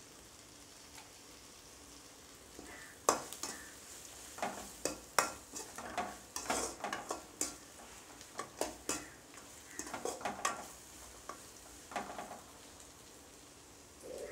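Metal ladle stirring onion-tomato masala frying in a metal kadai: quick clicks and scrapes of metal on metal over a faint sizzle. The stirring starts about three seconds in and eases off near the end.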